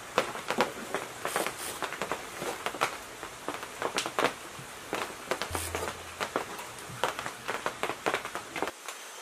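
Irregular light clicks and taps of hand work on a diesel engine: a gasket being laid on the engine block and a sheet-metal tank housing being set onto it.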